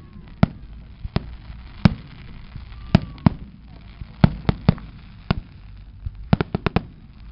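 Aerial fireworks going off: sharp bangs at uneven intervals, with a quick run of four near the end.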